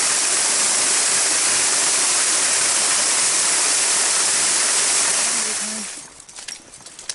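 Waterfall rushing, a loud steady wash of falling water that fades away about six seconds in, leaving a few faint clicks near the end.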